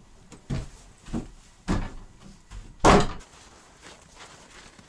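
Heavy footsteps knocking on a wooden floor, three steps, then a door slamming shut about three seconds in, the loudest bang.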